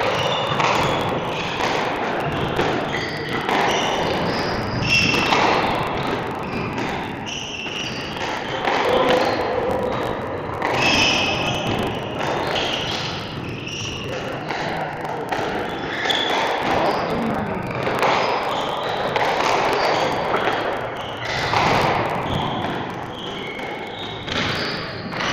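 Squash rally: the ball thudding against the court walls and being struck by rackets, repeated impacts at an irregular pace, with people talking in the background.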